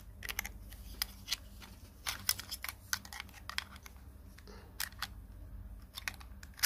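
Irregular small plastic clicks and taps as an action camera is handled and screwed onto the Bower BendiPod's plastic mount plate.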